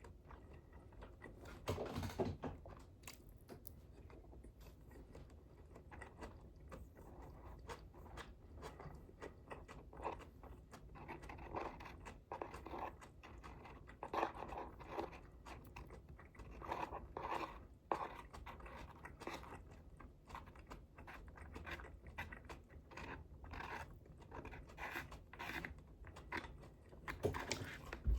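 A person chewing and crunching food close to the microphone: an irregular run of wet mouth clicks and crunches, with louder bites about two seconds in and again near the end.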